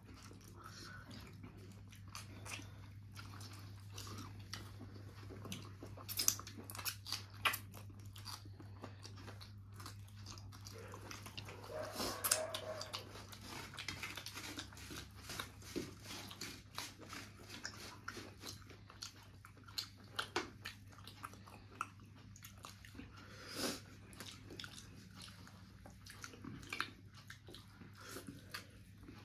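A person eating: chewing and biting food, with irregular crunches and clicks, over a steady low hum.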